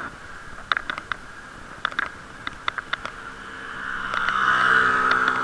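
Muffled riding noise picked up by a camera inside a waterproof case on a moving bicycle: scattered clicks and knocks, and from about four seconds in a steady droning hum that grows loud and holds.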